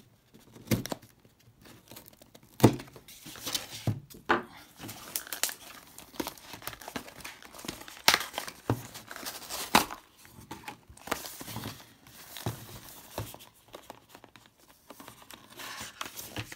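Crinkling and tearing as the seal and wrapping on a smartphone box are cut and pulled off with a knife, with irregular sharp clicks and taps of the cardboard box being handled.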